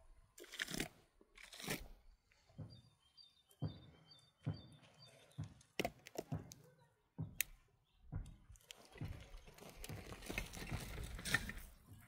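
Mud and soil being scooped and scraped, in separate crunching strokes about a second apart, then a denser run of scraping over the last few seconds.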